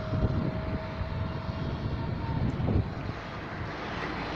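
Steady running noise of a moving road vehicle, engine and tyres on tarmac, with irregular low rumbles of wind on the microphone.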